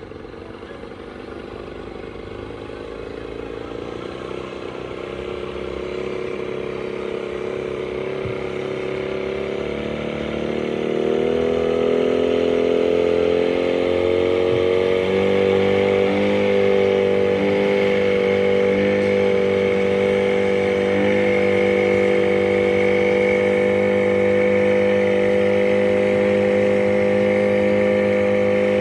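An engine speeding up, rising in pitch and growing louder over about ten seconds, then running steadily at high speed.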